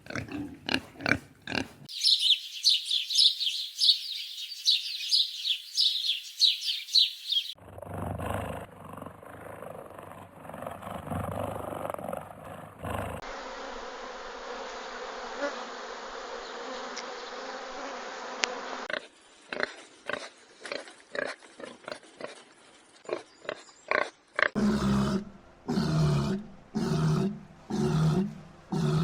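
A sequence of different animal sounds joined by abrupt cuts: short repeated calls, a stretch of high, rapid chirping, noisy rustling stretches, and near the end a run of regular low grunts.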